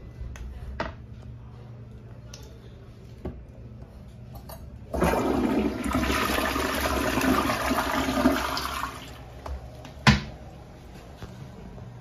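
Glacier Bay toilet flushing: a sudden rush of water starting about five seconds in, strong for about four seconds, then fading as the bowl drains. A sharp knock follows about a second after the rush fades.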